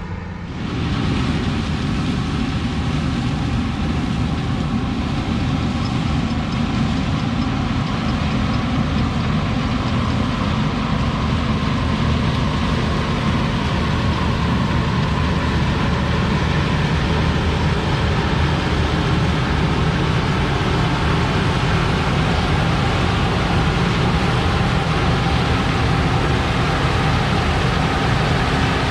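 A large diesel engine on heavy farm equipment or a grain truck, running steadily with a constant rumble and hiss.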